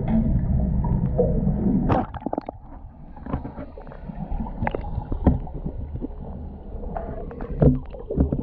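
Background music stops abruptly about two seconds in, leaving underwater sound: water gurgling and sloshing around the camera, with scattered sharp clicks and knocks.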